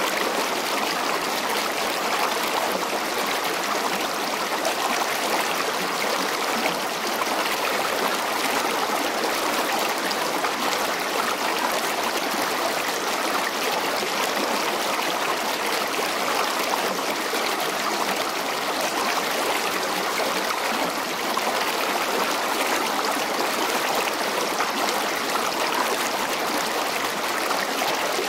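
Steady, even rushing of flowing river water, unchanging throughout.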